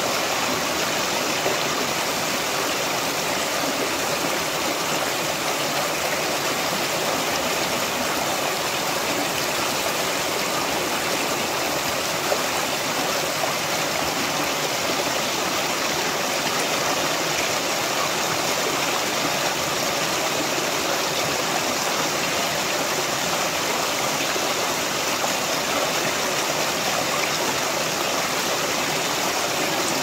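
River water rushing, a steady even sound that does not change.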